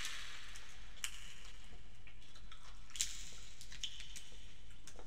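Fingers peeling sauce-coated boiled prawns: a few short, wet crackles and squishes of shell coming away, about a second in, near three seconds and once more shortly after, over a steady low hum.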